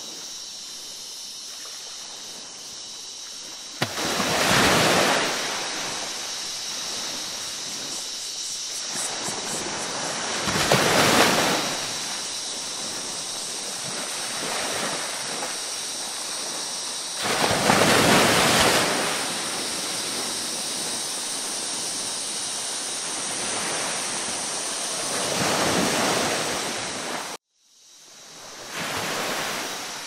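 Ocean waves breaking, a surge about every seven seconds over a steady wash of surf. The sound cuts out suddenly for a moment near the end, then swells back in.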